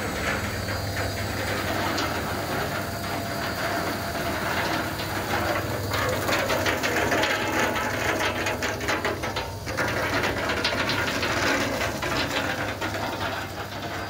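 Hazelnut roasting and peeling machinery running: a steady low hum under a dense rattle of roasted hazelnuts tumbling on the wire-mesh conveyor and through the peeler, thickest midway through.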